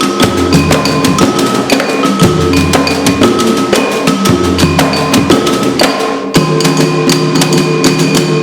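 Percussion improvisation in Afro-Brazilian rhythms: quick, dense drum strokes in a driving groove, with short ringing high notes and a deep low drum tone coming back every second or so.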